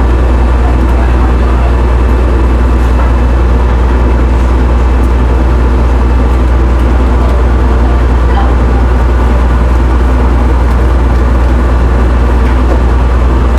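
Ferry's engines running with a steady, deep drone that does not change.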